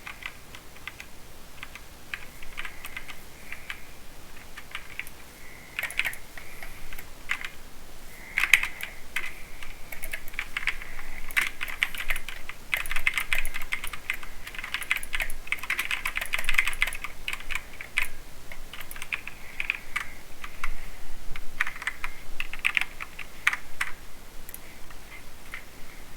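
Typing on a mechanical keyboard with Cherry MX Silver speed switches, linear keys that clack as they bottom out. The keystrokes are scattered at first, then become fast, continuous typing from about eight seconds in.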